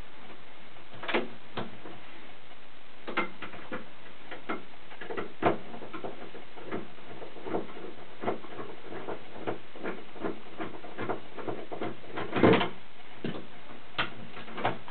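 Doorknob lock set's mounting screws being turned out by hand with a screwdriver: scattered small metal clicks and scrapes at an irregular pace, with a louder rattle near the end.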